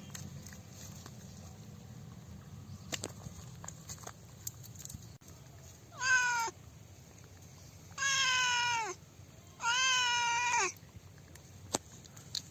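An animal calling three times: a short cry, then two longer cries of about a second each, each one falling in pitch at the end. A few faint clicks sound around them.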